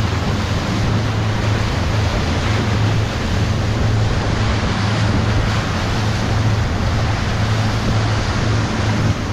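Small motorboat underway: a steady engine drone under the noise of water along the hull and wind on the microphone.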